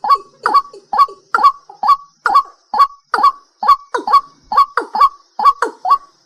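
A night bird calling over and over, about two to three short, sharp, downward-falling calls a second, some coming in quick pairs.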